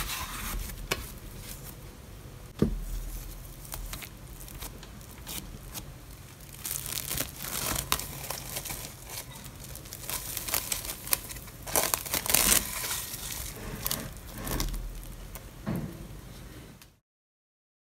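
Plastic cling film crinkling as it is pulled and stretched over a glass bowl of bread dough, with many small crackles and one sharp knock about two and a half seconds in. The sound stops abruptly near the end.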